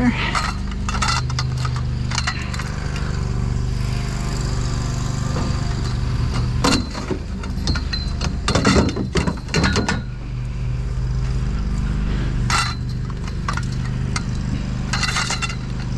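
Galvanized steel tubes clanking and clattering against each other as a bundle is picked up and laid into a pickup truck bed on other scrap metal, loudest in a burst of rattling knocks past the middle. A steady low engine hum runs underneath.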